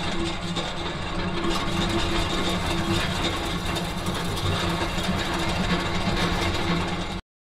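Machinery sound effect under an animated logo: a steady mechanical running noise with a low hum, which cuts off suddenly near the end.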